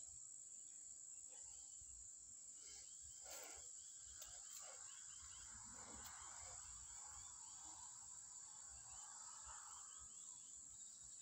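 Near silence with a faint, steady, high-pitched insect chorus and a low rumble of wind or handling underneath.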